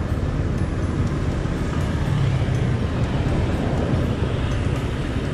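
Motor scooter engine idling steadily, a continuous low rumble.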